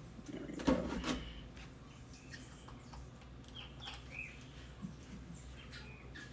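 Water glugging from a plastic gallon jug into a plastic water bottle, ending about a second in with a couple of knocks, then light plastic rubbing as the bottle is handled and capped. A bird chirps twice a few seconds in.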